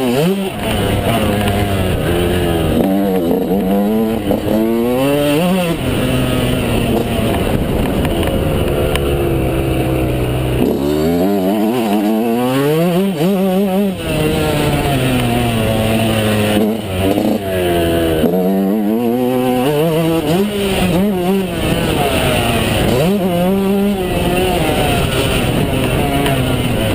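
Yamaha YZ125's two-stroke single-cylinder engine being ridden hard. It revs up through the gears and backs off again, its pitch climbing and falling over and over, with the revs dropping away sharply several times.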